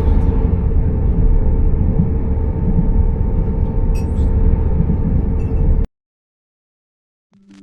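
Train running, heard from inside the carriage: a steady low rumble with a constant hum over it. It cuts off abruptly about six seconds in.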